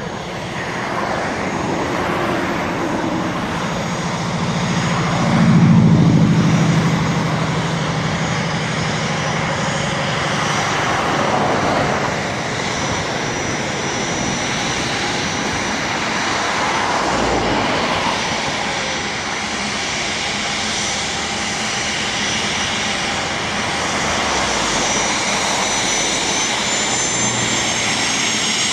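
Dassault Falcon 7X business jet taxiing on its three Pratt & Whitney Canada PW307A turbofans: a steady rush of jet noise with a thin high whine. It is loudest about six seconds in, and the whine rises in pitch near the end as the jet turns toward the runway.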